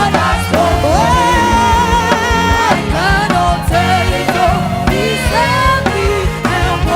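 Live gospel praise music: singing with held, gliding notes over a band with drums and a steady beat.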